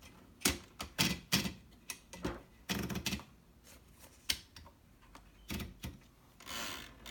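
Keystrokes on a 1969 Hermes Rocket manual typewriter: sharp, irregular clacks of the typebars striking the paper, some in quick runs, with a longer rasping sound near the end.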